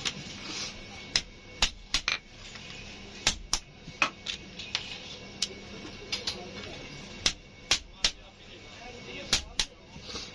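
A small metal hand tool tapping on a truck clutch plate: a dozen or so sharp metallic clicks and knocks at uneven intervals.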